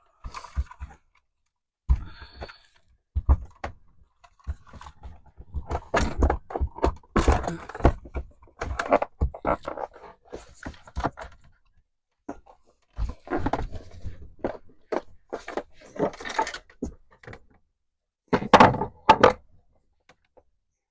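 Irregular thunks, clicks and scrapes of an outlet being worked by hand into a hole in the trailer's thin wall panel, with busy stretches of knocking, short pauses, and two sharper knocks near the end.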